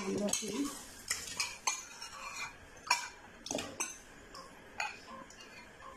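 Steel spoon clinking and scraping against a metal cooking pot as blended rice is spooned from a packet into hot milk, in scattered irregular taps and clicks.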